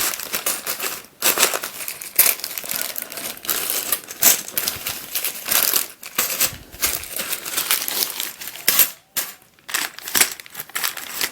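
Small plastic bags of twisty-puzzle parts being handled and sorted, the bags crinkling while the loose plastic pieces inside click and clatter irregularly.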